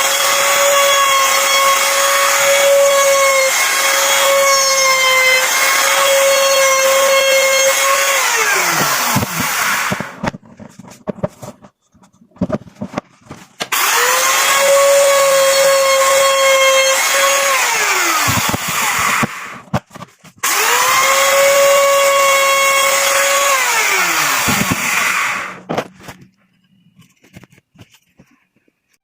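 Electric woodworking power tool's motor whining at high speed, with small dips in pitch as it bites into wood. It is switched on and off three times, and each time it winds down with a falling pitch before going quiet.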